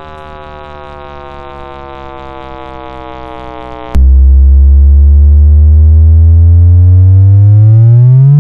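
Synthesized tone with many overtones, sinking slowly in pitch; about four seconds in it jumps to a much louder low tone that slides upward, rising faster and faster toward the end like a chirp.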